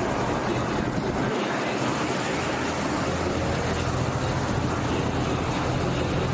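Canal passenger boat's engine running as the boat approaches, a low steady hum that comes in about two and a half seconds in over a constant rushing noise.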